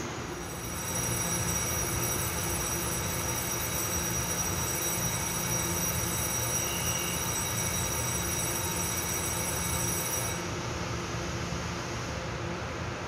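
Taiwan Railway TEMU1000 Taroko-type electric multiple unit at the platform: a steady running hum and a set of high-pitched whining tones that cut off abruptly about ten seconds in.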